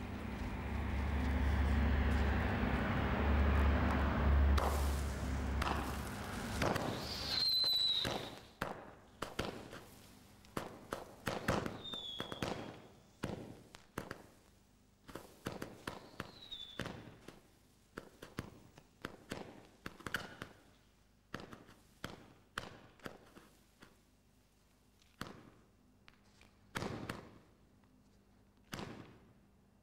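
Fireworks being set off: a steady hiss as a firework fires from a ground rack, then a run of sharp bangs and crackles from aerial bursts with a few short falling whistles, thinning out to single bangs near the end.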